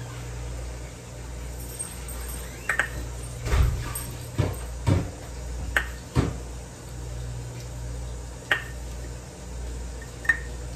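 A cup scooping sugar in a glass jar: scattered clinks and knocks against the glass, about eight over the stretch, with scraping and rustling between them. A low steady hum runs underneath.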